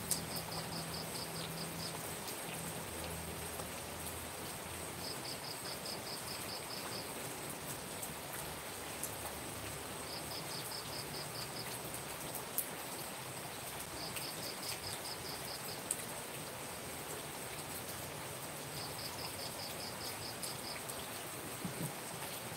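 Steady rain falling on the ground and roofs, with an insect calling in short high trills of about five pulses a second, each lasting around two seconds and repeating roughly every five seconds.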